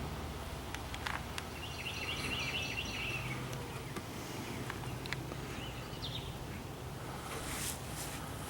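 Outdoor ambience with a steady low hum; a bird sings a short chirping phrase about two seconds in and chirps again briefly near six seconds, with a few light clicks and rustles.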